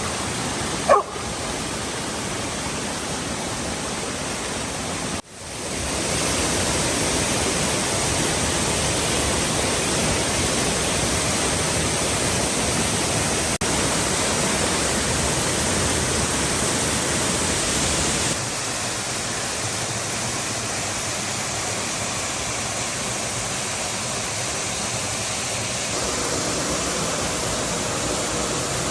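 Steady rush of water from a waterfall and cascading creek, changing in level at a few points. A dog yelps once, about a second in.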